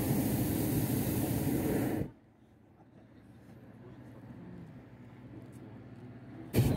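Hot air balloon's propane burner firing with a loud, even roar that cuts off sharply about two seconds in, followed by a short blast of the burner near the end.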